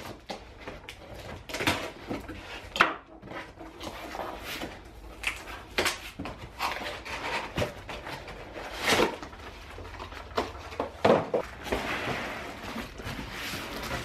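A cardboard box being opened by hand: a series of sharp knocks, scrapes and tearing as the flaps are pulled open. Near the end comes a longer rustle of plastic wrap and cardboard as the packed heater is lifted out of the box.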